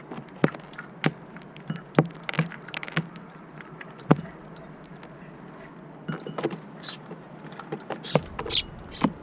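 Irregular sharp taps of small birds pecking at seed on a feeder, one every half second to second. They come more often in the last few seconds, with a few high chirps near the end.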